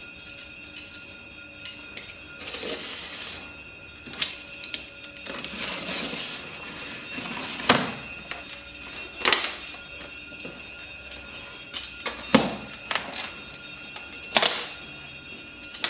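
Cardboard box being opened by hand: a box cutter scraping through packing tape, then the cardboard flaps rustling and knocking as they are pulled open, with several sharp knocks. Background music plays throughout.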